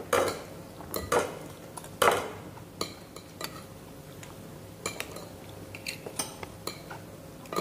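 Spoons and forks clinking and scraping against plates and bowls as several people eat at a table. The clinks come irregularly, a few louder ones in the first two seconds, then lighter taps.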